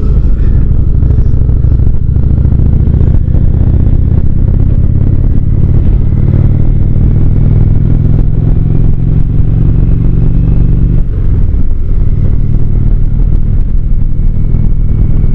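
Indian Springfield cruiser's V-twin engine running steadily at road speed, heard from the rider's seat; its note dips briefly about eleven seconds in.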